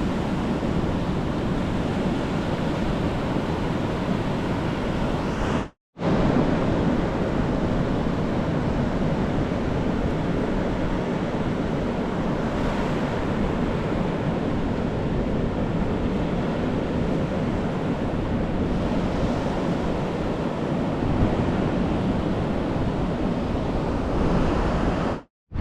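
Ocean surf washing onto a beach, a steady rush of waves with wind on the microphone. The sound cuts out briefly twice, about six seconds in and near the end.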